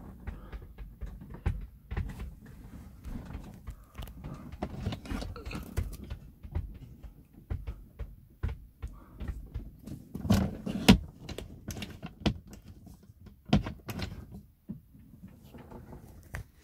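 Caravan's wooden overhead locker being opened and shut: a run of knocks and clicks from the door and its catch, over low rustle from handling. The loudest knocks come about ten seconds in and again near fourteen seconds.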